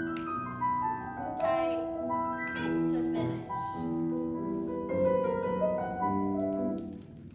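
Recorded solo piano music for a ballet barre exercise: a run of single notes over held chords, which stops near the end.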